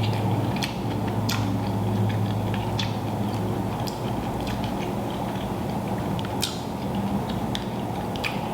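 Scattered small clicks and smacks of someone eating a seafood boil, over a steady low hum.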